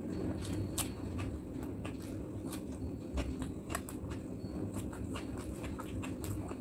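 Close-miked eating of rice and curry by hand: wet chewing and mouth smacks, many short sharp clicks coming irregularly, over a steady low hum.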